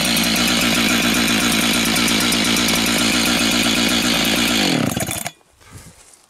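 Husqvarna 385 two-stroke chainsaw running steadily with the chain not cutting, then switched off about five seconds in, its engine note falling as it winds down to a stop.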